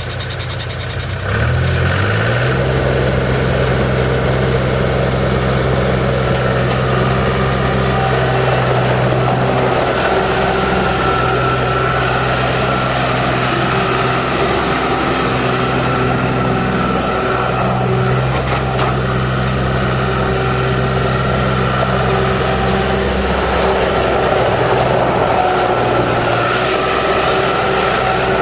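John Deere 240 skid steer loader's diesel engine running just after start-up: it revs up about two seconds in, then runs steadily at a higher speed, its pitch shifting now and then.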